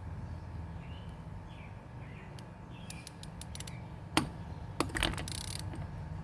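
A few sharp metallic clicks and clacks, the loudest about four seconds in and a short rattle just after, as a socket on a torque wrench is fitted to a wheel lug nut; the socket is the wrong size and slips on the nut.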